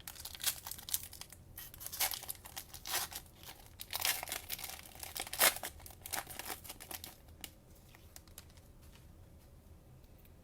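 Plastic wrapper of a trading-card cello pack being torn open and crinkled: a run of irregular crackles that dies down after about seven seconds.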